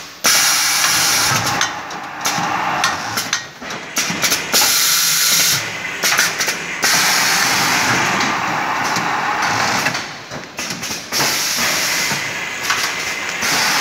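Automatic atta (flour) packing machine running, its pneumatic cylinders and valves giving loud air hiss that cuts out sharply and starts again every few seconds.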